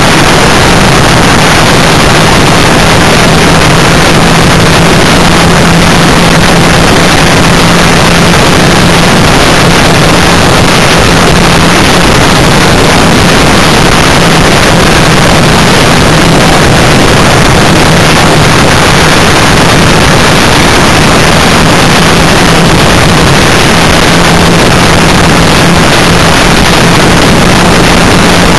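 A vehicle driving steadily on a dirt road, heard from a camera riding on it: a constant engine hum under loud wind and road noise that overloads the recording.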